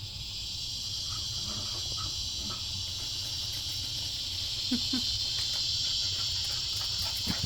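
Steady, high-pitched chorus of insects, growing a little louder, with a couple of brief faint low sounds about five seconds in.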